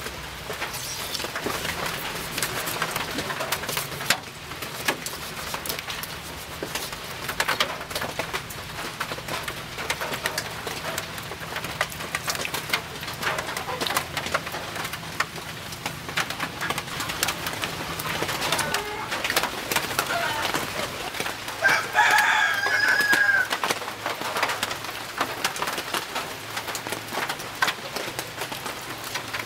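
Birds calling, with one louder drawn-out call about two-thirds of the way through, over a steady crackle of small clicks and patter.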